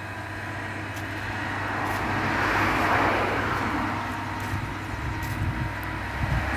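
A passing road vehicle, its noise swelling to a peak about halfway through and then fading, over a steady low hum.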